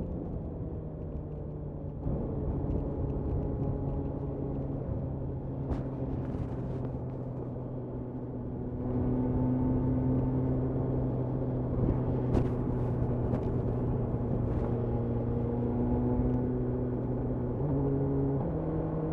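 BMW S1000R's inline-four engine running at a steady, fairly low engine speed while riding. Its note steps about a second and a half before the end and begins to rise at the very end.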